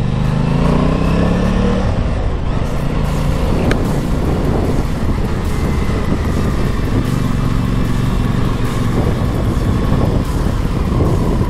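Aprilia Tuono 660 parallel-twin engine rising in pitch as the bike accelerates for the first two seconds, then running at a steadier road speed, under loud wind rush on the helmet-mounted camera.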